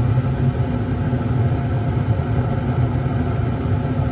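Gas furnace firing: burners lit and the draft inducer motor running with a steady low hum, with the blower not yet started.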